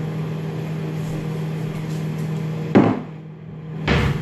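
Steady low mechanical hum of a running appliance, with a sharp knock almost three seconds in. The hum drops out briefly, and a second thump comes near the end.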